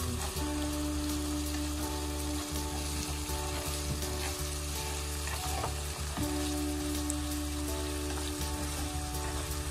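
Fried tofu cubes sizzling in scallion oil in a nonstick frying pan, steady and crackling, with chopsticks now and then turning the cubes against the pan.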